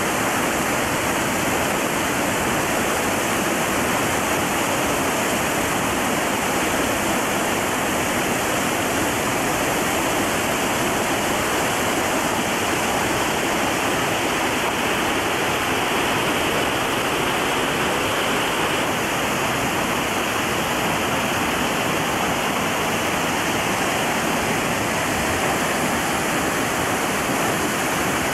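Whitewater of a river rapid rushing over and between rocks, a steady, even rush of water.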